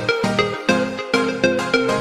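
Background music: an electronic keyboard tune with short plucked notes in a steady beat.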